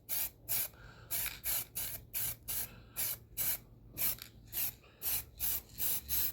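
Aerosol can of yellow caliper spray paint hissing in short, quick bursts, about three a second, as a coat is laid onto a bench vise.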